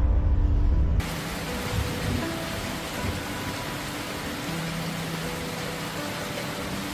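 Heavy tropical rain falling steadily, an even hiss over trees and roofs, with faint background music beneath it. A loud low rumble from the ride in the pick-up truck's open back cuts off suddenly about a second in.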